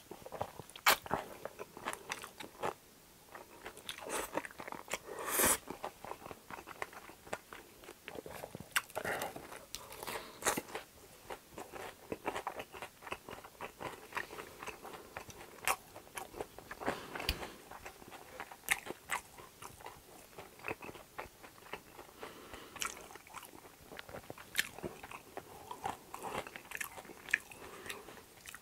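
Close-miked mouth sounds of a person eating spicy chewy jjolmyeon noodles: slurping them in with chopsticks, then chewing with many short, wet, irregular clicks.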